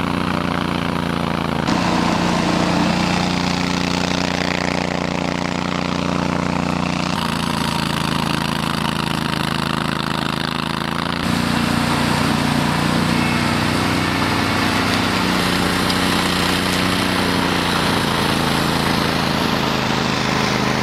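Honda iGXV800 V-twin petrol engine of a Stella URS100 remote-controlled tracked rotary mower running steadily under load as it cuts through bracken and long grass. The engine note shifts abruptly a few times.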